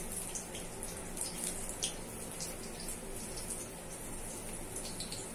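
Gram-flour (besan) pakoras frying in mustard oil in a kadhai on a medium-to-low flame: a steady, gentle sizzle with scattered small crackles.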